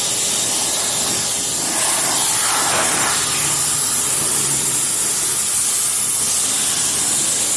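Shop vac blowing a steady, loud hiss of air through an engine air filter to clear dirt out of it.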